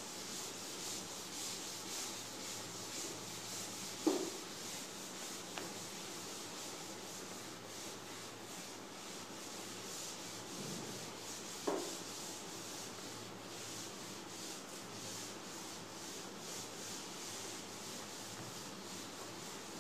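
Chalkboard duster rubbing back and forth across a blackboard, wiping off chalk writing, as a steady scrubbing hiss. Two brief knocks come about four and twelve seconds in.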